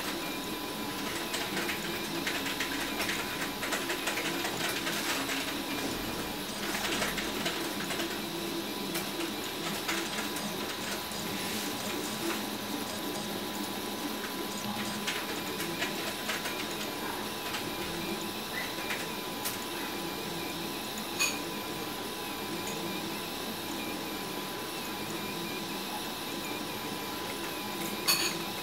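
RepRap Huxley 3D printer running a print: its stepper motors whir and buzz in short, changing runs as the print head lays down plastic filament, over a faint steady whine. Two sharp clicks come in the second half.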